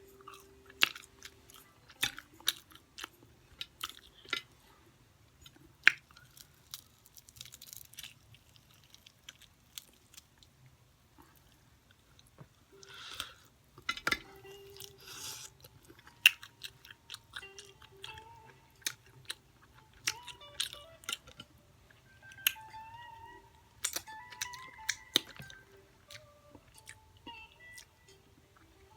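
Close-up chewing of crunchy fried chicken, with sharp crunches scattered throughout.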